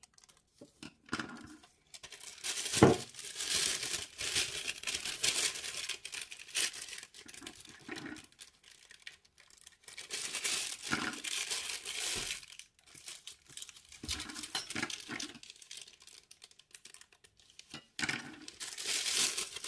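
Thin plastic disposable piping bag crinkling and rustling in irregular bursts as it is cut with scissors and handled, with one sharp click about three seconds in.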